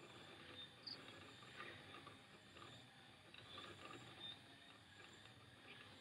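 Faint, steady patter of rain, with scattered small drops ticking.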